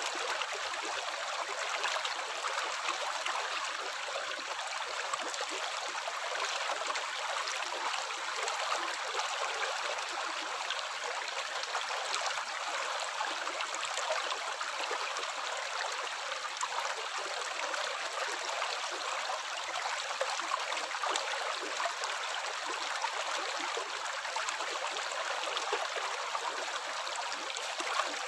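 Running water trickling and splashing steadily, an even rushing hiss flecked with small splashes and bubbles.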